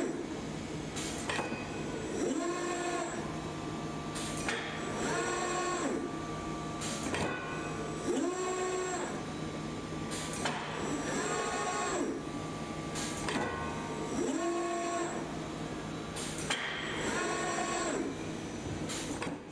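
Industrial robot arm's servo drives whining as the arm moves, the pitch rising, holding and falling with each move, about every two to three seconds. Between moves come short sharp clacks as the pneumatic magnet gripper grabs and releases flat steel bars. A steady low hum runs underneath.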